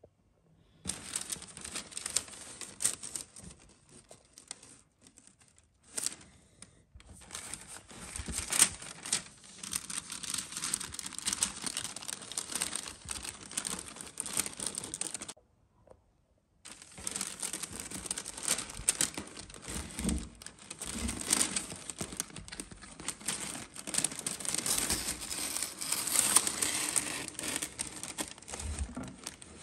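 Tissue paper and plastic packaging crinkling and rustling as it is unwrapped by hand. It stops for about a second midway, then resumes.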